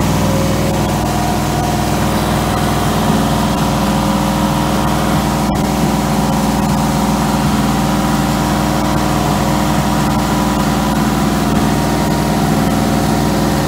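1963 Oldsmobile Jetfire's turbocharged 215 cubic-inch aluminum V8 running at a steady, unchanging speed during its camshaft break-in run.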